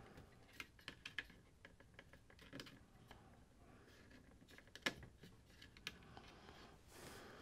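Faint, scattered small clicks and ticks of a small flat blade screwdriver and fingers working a plastic wired LCD connector loose from an instrument-cluster circuit board.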